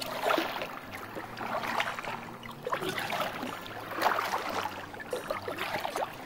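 Water splashing and lapping against a kayak's hull as it moves along, in swells about every second or so.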